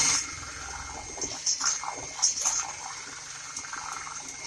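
Electric hand mixer whisking a pot of thick, freshly cooked milk pudding. Its motor noise drops sharply just after the start, leaving a steady hum with wet churning and a couple of short slapping surges from the beaters in the pudding.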